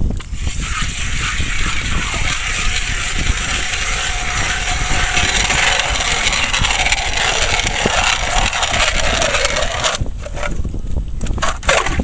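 Hand-cranked ice auger boring through lake ice: a steady grinding scrape of the blades shaving ice, which stops about ten seconds in, followed by a few knocks.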